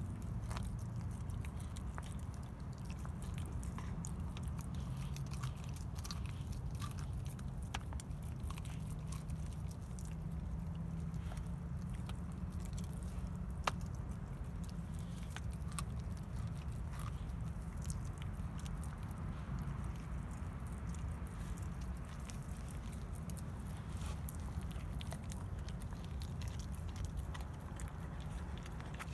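Dog chewing raw pork ribs: irregular crunches and clicks of teeth on meat and bone, one sharper crack about halfway through, over a steady low hum.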